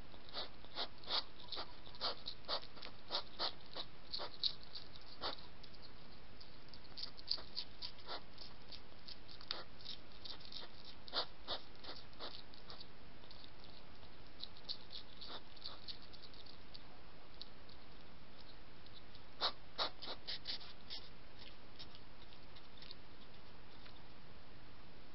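European hedgehogs crunching dry kitten-food kibble: irregular sharp crunches and clicks over a steady hiss. The crunching is thick at first, thins out in the middle, and comes back in a short flurry about three-quarters of the way through.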